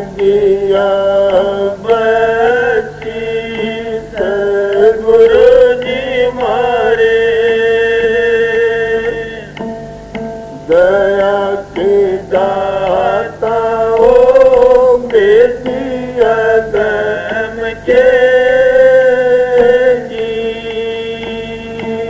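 A man singing a devotional Hindi shabad (bhajan), phrase by phrase with sliding, held notes, over a steady harmonium accompaniment.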